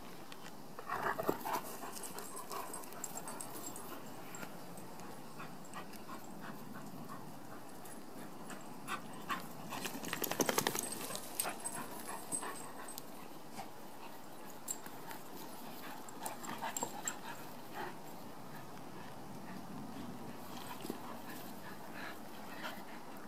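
A German Shepherd and a small terrier playing rough together: short bursts of dog noises, loudest about a second in and again around ten seconds in, with scattered small clicks between.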